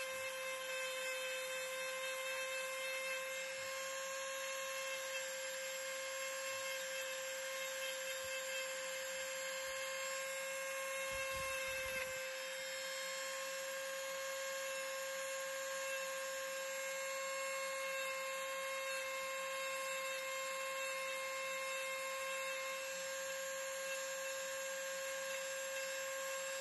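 Ryobi 1.2-amp corded rotary tool running at a steady speed, its small burr bit grinding detail into the carved wood; a steady high whine.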